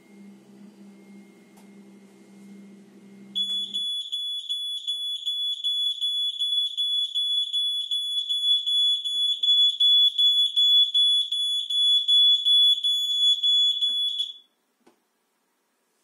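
A battery-powered smoke detector sounding its alarm: a shrill, piercing tone pulsing about three times a second for about eleven seconds, then stopping. A faint low hum in the first few seconds stops just after the alarm starts; the alarm signal trips a relay that cuts the 3D printer's power.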